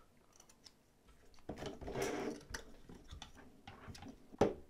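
Plastic propellers being fitted onto a DJI FPV drone's motors by hand: small plastic clicks and handling rustle, with one sharper click near the end.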